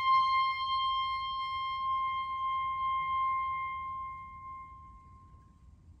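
Solo clarinet holding one long high note that slowly fades away, dying out about five seconds in.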